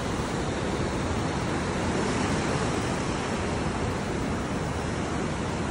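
Steady rush of surf breaking and washing over the shallow beach, mixed with wind on the microphone.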